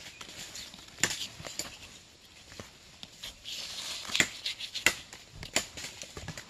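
A handful of sharp knocks and cracks with rustling between them, from cinnamon bark being cut and peeled off the trunk with a knife. The loudest comes about a second in, and three more come close together in the second half.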